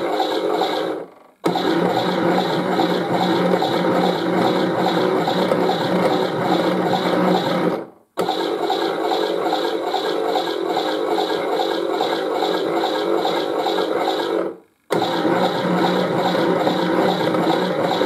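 Zanussi Auto toy washing machine making its steady water-filling noise during the fill-up stage. The noise fades out and cuts back in abruptly three times: about a second in, around eight seconds, and near fifteen seconds.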